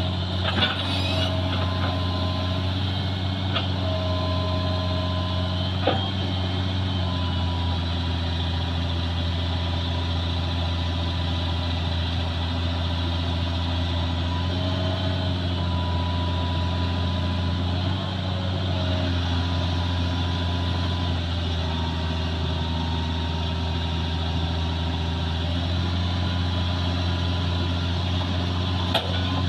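Hitachi crawler excavator's diesel engine running steadily under load while it works its way off a lowbed trailer, the engine note shifting slightly as the controls are worked. Thin whining tones come and go over it, with a few sharp clanks, one about six seconds in.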